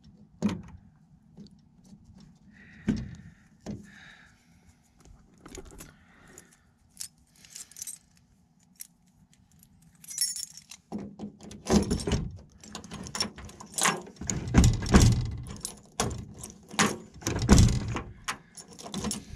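A ring of keys jangling, with repeated clicks and knocks as a key is worked at the door lock of a Jeep Cherokee XJ. Sparse clicks at first, then busier and louder from about halfway through.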